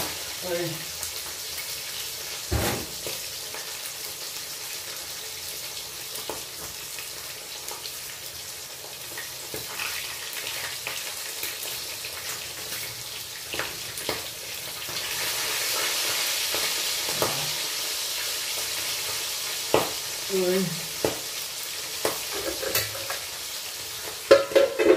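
Bangus (milkfish) slices sizzling in oil in a pan, with scattered clicks of metal tongs against the pan as the fish is turned. The sizzle gets louder about two thirds of the way in, and near the end a metal lid clatters onto the pan.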